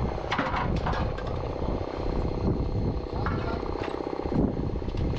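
A steady motorised machine running with a fast, even pulse, and a few sharp metal knocks and clanks over it.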